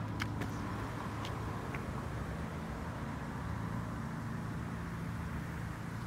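Steady low hum of motor vehicles, with a few light clicks in the first two seconds.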